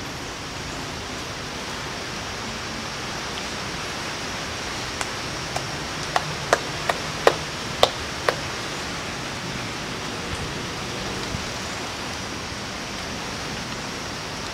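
Steady hiss of outdoor background noise, broken about five seconds in by a quick run of about eight sharp clicks over some three seconds.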